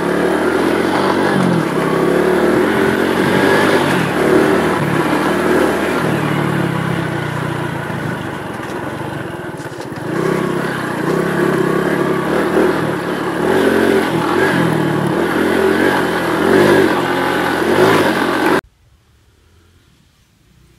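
Honda Pop 110i's small single-cylinder four-stroke engine running under throttle on a dirt track, its pitch rising and falling as the rider opens and closes the throttle. It eases off for a couple of seconds about halfway through, picks up again, and stops suddenly near the end, leaving faint outdoor quiet.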